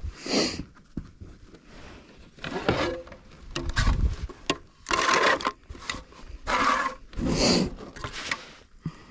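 Bursts of scraping and rustling from handling a largemouth bass and laying it on a plastic measuring board in a kayak, six or so irregular bursts each about half a second long.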